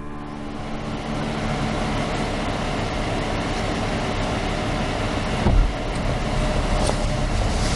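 A parked SUV's engine running at a steady idle, with a thump about five and a half seconds in as its driver's door is opened.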